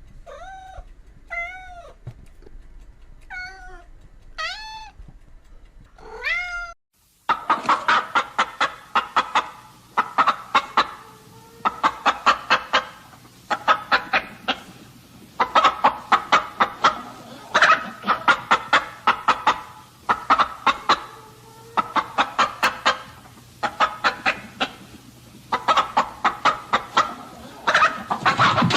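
A domestic cat meowing about five times, each call rising then falling. About seven seconds in it cuts abruptly to chickens clucking in quick bursts every couple of seconds.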